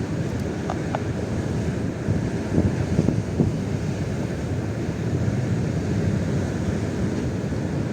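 Strong wind buffeting the microphone, a constant low rumble with harder gusts about two and a half to three and a half seconds in.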